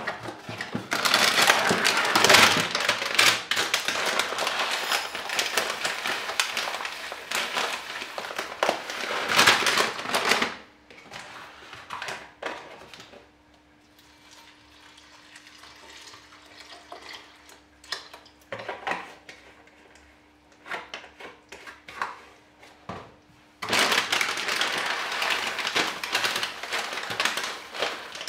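Breakfast being made by hand: long stretches of loud plastic-bag rustling, with muesli poured from its plastic bag into a ceramic bowl near the end. In the quieter middle, milk is poured from a carton into the bowl among a few small clicks and knocks, over a faint steady hum.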